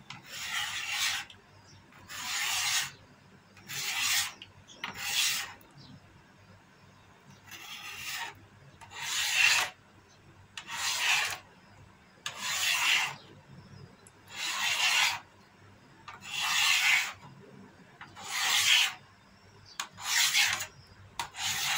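Kitchen knife drawn through set jelly in a fluted tart pan, the blade scraping along the pan's base as the jelly is scored into cubes. A rasping stroke comes roughly every one and a half to two seconds, about a dozen in all.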